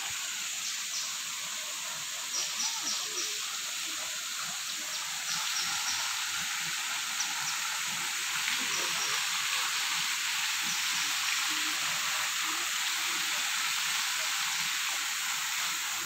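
Steady high-pitched hiss of tropical forest ambience, with short high chirps repeating through the first half; it grows a little louder about five seconds in.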